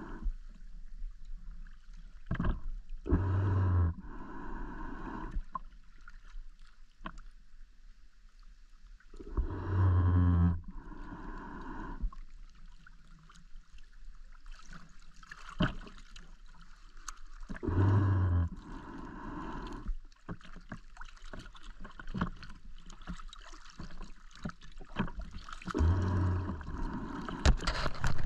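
Scuba diver breathing through a regulator underwater: four bursts of exhaled bubbles rumble out, about every seven to eight seconds, with faint clicks and crackles in between.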